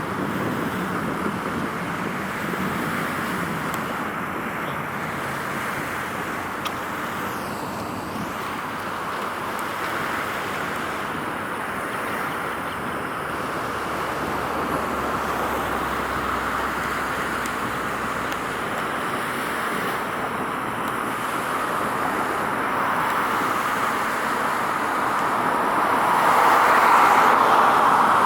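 Steady road-traffic noise, the even hiss and hum of vehicles on a busy road, swelling louder near the end as something passes close.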